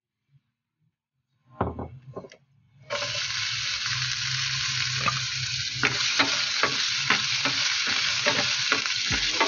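After a few short knocks, diced red onion hits hot oil in a nonstick frying pan about three seconds in and sizzles steadily, with a plastic spatula clicking against the pan as it stirs.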